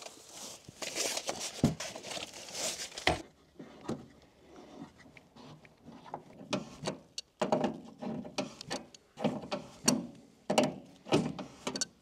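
Handling noise from bending and positioning a mini split's insulated copper line set: rustling for about the first three seconds, then scattered knocks and clicks.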